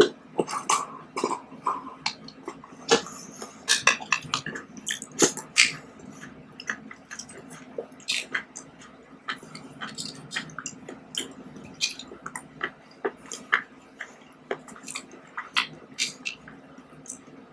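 Close-miked eating of fruit jelly: wet slurping from a tipped plastic cup, then many small sharp clicks and squishy mouth sounds of chewing. A spoon taps and scrapes in the plastic jelly cup, over a faint steady hum.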